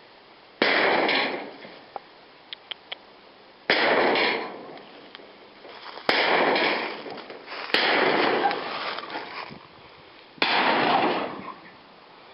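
An old feed shed being crushed: five sudden loud crashes of breaking material, each trailing off over a second or two, with a few small cracks between the first two.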